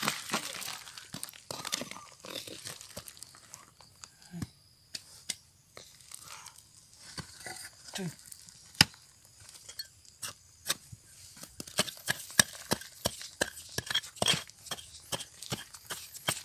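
Gravelly soil and loose shale flakes being scraped and dug by hand with a wooden stick, crunching and scratching with many sharp, irregular clicks of small stones knocking together.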